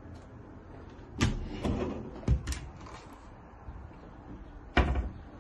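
Kitchen cupboard doors and a small under-counter fridge door being opened and shut: a handful of clunks and clicks, the loudest a little after one second in and near the end.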